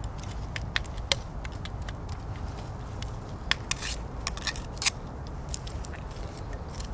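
Soil being scraped and dropped to fill a small grave: scattered short crunches and scrapes, the loudest a little after one second and again between three and five seconds in, over a steady low rumble.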